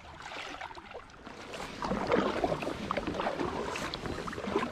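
Kayak being paddled, with water splashing and sloshing and small knocks, louder from about two seconds in.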